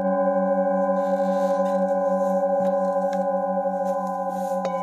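Several metal singing bowls ringing together in a sustained chord of overlapping steady tones, the lowest tone wavering in a slow pulse and the whole chord fading a little. A few faint mallet taps sound in the second half.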